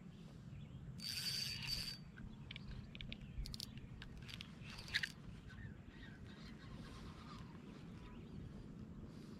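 Spinning reel whirring for about a second as line runs through it under the load of a hooked fish, followed by faint scattered clicks and ticks and one sharper tick near the middle.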